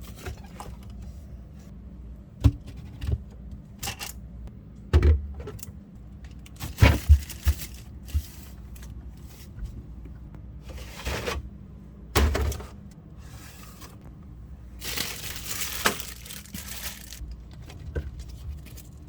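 Handling noises: scattered knocks and clunks with rustling and brief swishes, then a rush of scraping noise lasting about two seconds near the end, over a steady low hum.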